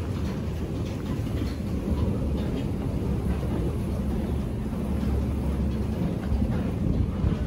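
Steady low rumble of subway station background noise, with faint irregular ticks over it.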